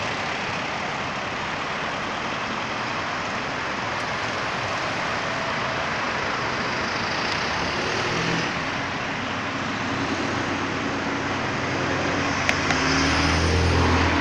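Steady road traffic noise from cars and motorbikes passing on a busy road. Near the end a vehicle's engine passes close, its low rumble growing louder.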